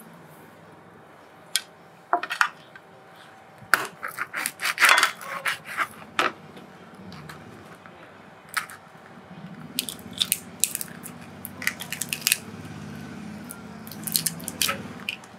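Shell of a giant river prawn cracking and pulling away under the fingers as it is peeled by hand on a plastic cutting board: sharp clicks and crackles in short clusters.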